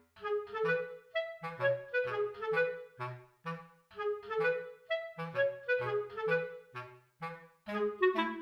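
Background music: a light, bouncy melody of short detached woodwind notes, clarinet-like, over a simple bass line.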